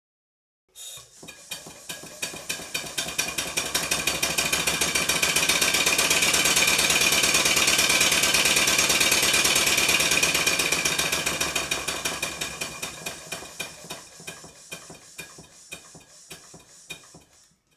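Stuart 5A model steam engine running on compressed air, its exhaust beats starting about a second in and quickening into a fast, steady high-speed run. The beats then slow and fade as the engine runs down to a stop near the end.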